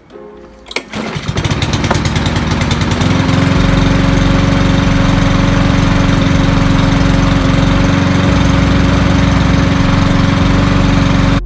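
Petrol lawn mower engine pull-started on its newly replaced starter rope: it catches about a second in, picks up speed over the next two seconds, then runs steadily.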